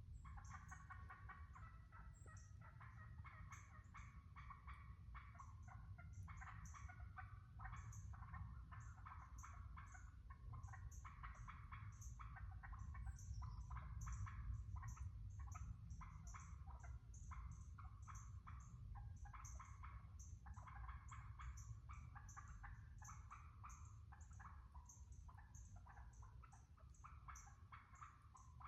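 Wild turkeys calling faintly and without a break, a dense run of short calls. A high, thin chip from another bird repeats about twice a second over them, above a steady low rumble.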